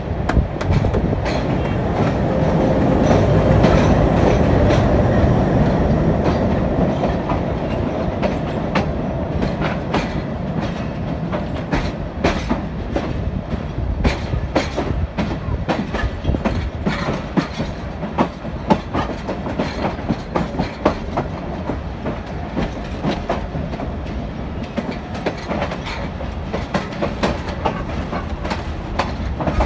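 Passenger train's wheels clattering over rail joints and points as the train rolls slowly through the station yard: an uneven clickety-clack over a steady rumble. A louder rumble swells and fades over the first several seconds.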